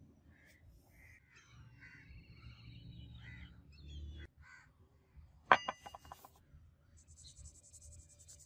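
Crows cawing in the background, with thin chirps of other birds. About five and a half seconds in comes a sharp metallic clink with a brief ring. Near the end a felt-tip marker scratches on the steel ring.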